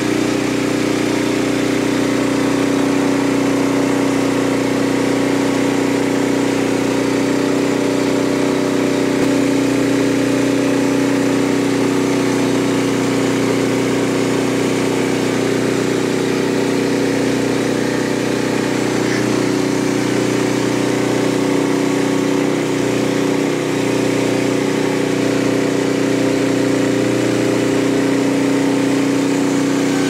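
Frontier portable band sawmill running steadily, its engine holding a constant pitch as the band blade cuts through a white oak log.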